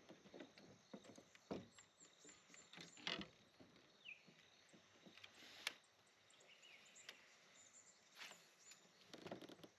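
Faint, scattered light knocks and taps, the loudest about three seconds in and just before six seconds, with a short high chirp around four seconds in.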